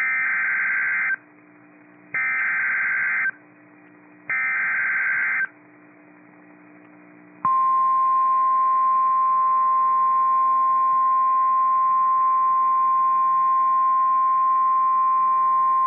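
NOAA Weather Radio alert signal: three one-second bursts of SAME digital header data, each followed by about a second of quiet, then the steady single-pitch 1050 Hz Warning Alarm Tone from about seven seconds in. It is the coded activation for a severe thunderstorm warning.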